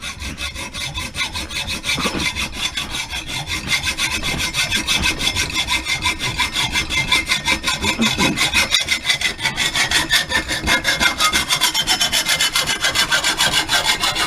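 Hacksaw cutting through copper tubing: quick, even back-and-forth strokes of the blade rasping on the metal pipe, which stop abruptly at the end.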